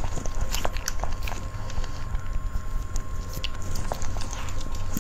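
Close-miked chewing of a soft, sticky cream cake: wet mouth clicks and smacks come at irregular moments as the cake sticks to the roof of the mouth, over a steady low hum.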